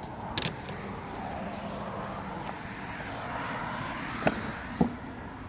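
A distant engine passing by, its drone swelling and easing with a slowly bending pitch, with a few sharp clicks near the start and about four and five seconds in.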